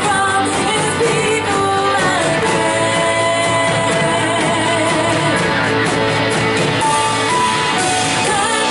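Worship band playing a hymn with guitar while voices sing, steady and loud.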